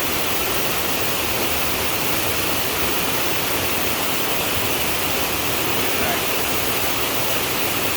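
Waterfall: cascading water making a loud, steady rush.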